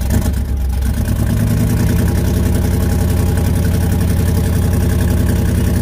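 1983 Chevy pickup's GM Target Master replacement engine running steadily just after a cold start. It is still cold and has not yet settled to a normal idle.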